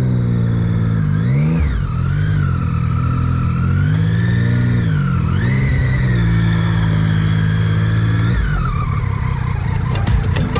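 Motorcycle engine running under way, its pitch dropping and climbing back three times as the rider shifts gears, then falling as the rider rolls off the throttle. Music with a beat comes in near the end.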